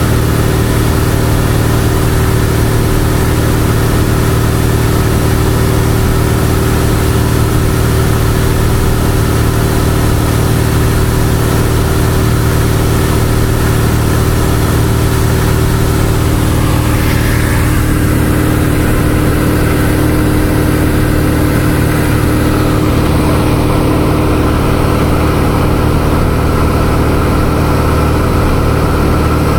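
Cessna 172's piston engine and propeller droning steadily in cruise, heard inside the cabin with a rushing hiss of airflow. The hiss softens a little just past halfway while the engine note holds steady.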